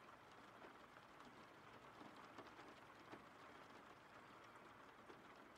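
Faint, steady rain: an even hiss of falling rain with scattered small drop ticks.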